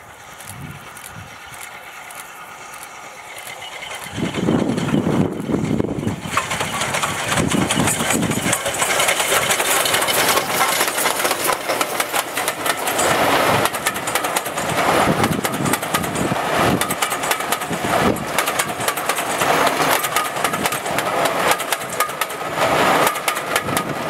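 LMS Stanier 5MT Mogul steam locomotive drifting downhill with steam shut off, growing louder as it comes by about four seconds in, then its train of coaches rolling past with a continuous rattle and rapid clicking of wheels on the rails.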